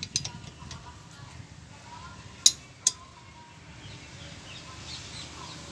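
A hand wrench clicks and clinks against the brake caliper's guide-pin bolt as it is tightened. There are a few light clicks at first, then two sharp metallic clicks close together about two and a half seconds in.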